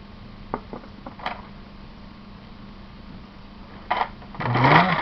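Plastic model-kit parts being handled and snapped together: a few light clicks in the first second or so, then a louder burst of rattling and handling noise near the end, over a steady low hum.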